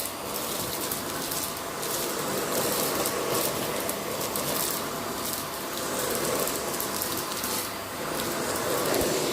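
Vacuum cleaner running steadily with a constant whine, its level swelling and easing a little every second or two.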